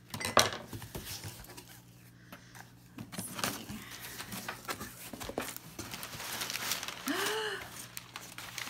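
Cardboard box flaps being pulled open and crumpled packing paper rustling and crinkling as hands dig through it, with scattered small knocks and scrapes and a sharp knock just after the start. A brief vocal 'ooh' comes about seven seconds in.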